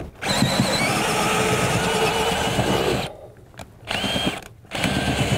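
Power drill boring a 1-inch bit into wooden wall boards. It runs steadily with a high motor whine for about three seconds, stops, gives one short burst, then starts drilling again near the end.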